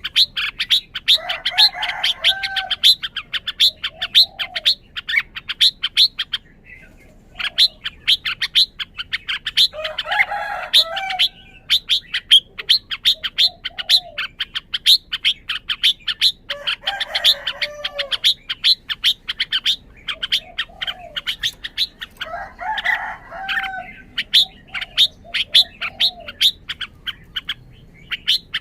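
Red-whiskered bulbul singing short warbled phrases four times, roughly every six to seven seconds, over a fast, steady series of sharp high chirps at about four a second that pauses briefly about six seconds in.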